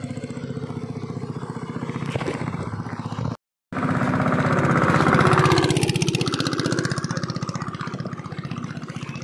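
Small motorboat engine running steadily while towing a line of wooden canoes on a river. The sound cuts out for a moment about three seconds in, then comes back louder for a few seconds before easing off toward the end.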